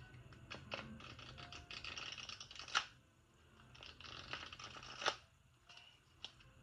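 A deck of oracle cards being riffle-shuffled twice: each time a fluttering run of card edges builds up and ends in a sharp snap as the halves fall together, about three and five seconds in.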